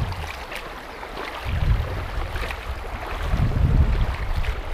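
River water rushing over a shallow riffle, a steady hiss, with wind buffeting the microphone in two gusts.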